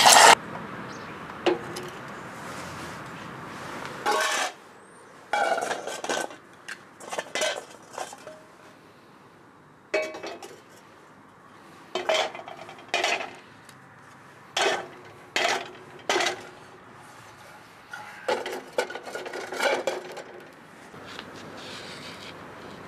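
Metal clattering and clinking: scrap lead and an aluminium saucepan being handled on the wire grill of a camping gas stove, in about ten short bouts of clinks with a brief ringing tone. It opens with a loud burst and a steady hiss for the first few seconds.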